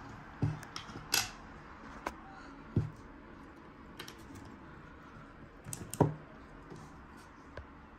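Scattered clicks and knocks of a small portable SSD, a card reader and cables being handled and set down on a desk. The loudest knock comes about six seconds in.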